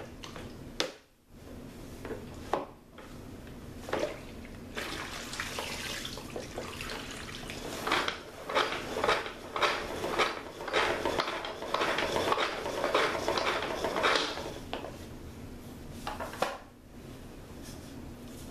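Kitchen clatter out of sight: a few sharp knocks near the start, then about ten seconds of rapid clinking, scraping and rattling, like dishes or utensils being handled, dying away near the end.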